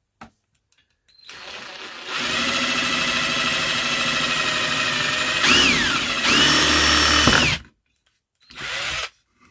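Electric drill boring a hole into scrap wood with a dull bit. It starts about a second in and runs steadily. Halfway through its pitch sags under load, then picks back up before the drill stops and winds down.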